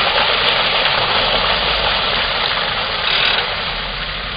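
Water gushing from a water tanker truck's rear outlet and splashing onto concrete pavement, over the truck's idling engine. The flow tapers off and the rush fades near the end.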